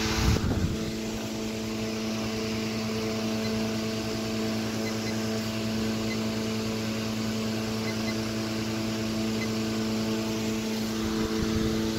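Antique Century 16-inch electric fan running: a steady, kind of loud motor hum made of several even tones, over a rush of air from its brass blades. A brief low bump about half a second in.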